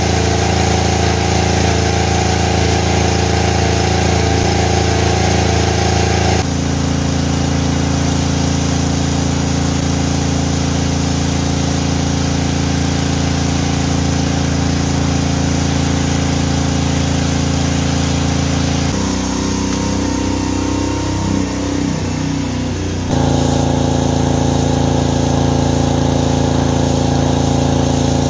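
Pressure washer running steadily while its wand sprays a wall. The sound changes abruptly a few times, wavering for a few seconds near the end.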